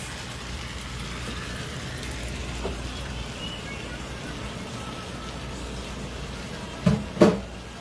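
Steady kitchen hiss of chicken and rice frying in a skillet, with a tap running into the sink. Two sharp knocks come close together near the end.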